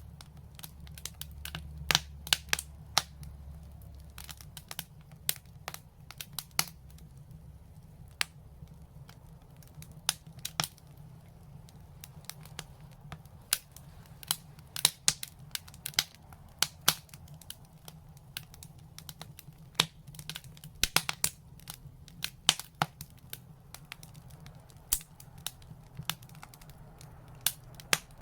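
Open fire crackling, with irregular sharp pops scattered through, several of them much louder than the rest, over a low steady rumble.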